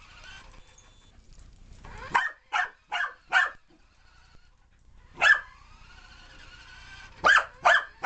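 Corgi puppy barking in short, sharp barks: a quick run of four about two seconds in, a single bark midway, then two more near the end.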